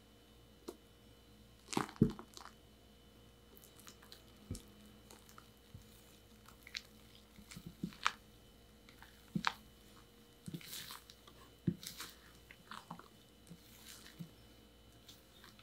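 Spatula folding meringue into Earl Grey chiffon cake batter in a glass bowl: soft wet squishing with scattered light taps and scrapes against the glass, the loudest knocks about two seconds in.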